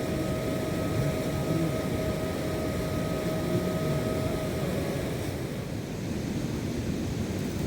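Mountain river rushing: a steady, dense wash of water noise. A thin steady tone is held over it for the first four and a half seconds, then stops.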